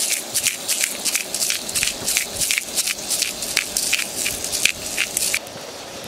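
Shrimp frying in oil in a small cast-iron skillet: steady sizzling with rapid crackling pops, several a second, which drop away suddenly near the end.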